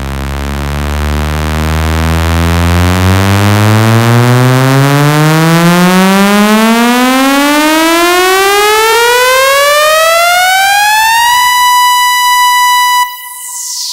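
Synthesized test sweep: a buzzy electronic tone rising steadily in pitch from deep bass to a high note over about eleven seconds, then holding that note and dropping away shortly before the end.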